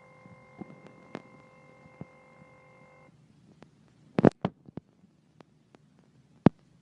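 An iPhone 6s giving out a steady electronic tone with a few overtones that cuts off abruptly about three seconds in. A quick cluster of sharp clicks and taps follows about four seconds in, and one more loud click near the end.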